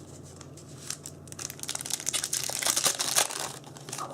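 Foil booster pack wrapper being torn open and crinkled: a dense crackling that starts about a second in, grows loudest in the middle and dies away near the end.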